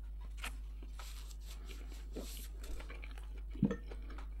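Faint mouth sounds of someone chewing with the mouth closed: small wet clicks and crackles, with one soft thump about three and a half seconds in.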